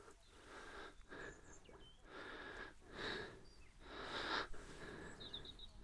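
Faint breathing close to the microphone: a series of soft breaths, each about half a second to a second long.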